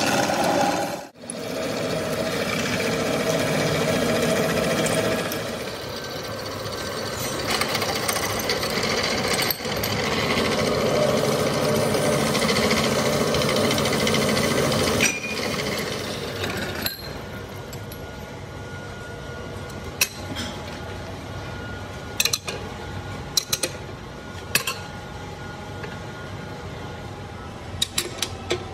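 Pillar drill boring into a steel truck wheel hub through a jig plate: a loud, dense cutting noise that breaks off briefly about a second in and runs on to about fifteen seconds. Then the machine runs more quietly, and several sharp metal clinks come in the last ten seconds.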